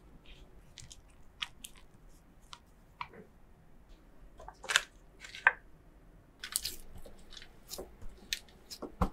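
Kitchen handling sounds: a rubber spatula pressing and scraping butter and powdered sugar against a glass bowl, then a block of cheddar rubbed against a stainless steel box grater in short, sharp scraping strokes. The two loudest strokes come about halfway through.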